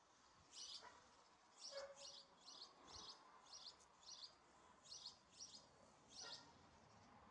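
Faint bird chirping: short high chirps repeated about twice a second, starting about half a second in.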